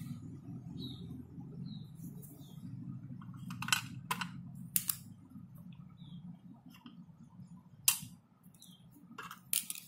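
Screw being driven into an electric iron's housing with a screwdriver: scattered sharp clicks and taps of metal tools and parts, over a steady low hum that fades out about eight seconds in.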